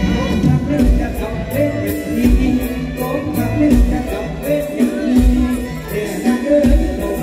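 Live Thai mor lam band music through a stage PA, with a bass drum beat and singing over it.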